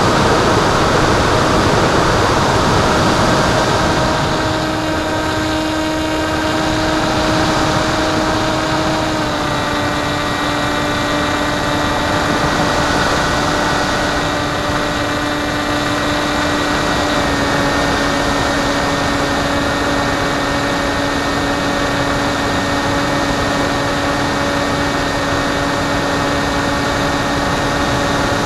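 Onboard sound of an FPV Penguin RC plane in flight: a steady rush of wind on the microphone with the whine of its electric motor and propeller. The whine steps slightly lower in pitch twice, about a third and about two thirds of the way through, as the throttle eases.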